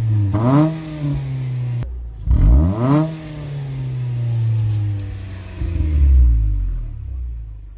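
Mitsubishi Lancer four-cylinder engine through a freshly installed HKS axle-back exhaust, revved hard twice about two seconds apart, the pitch shooting up and falling back each time. A slower third rev follows, then it drops back to a steady idle near the end.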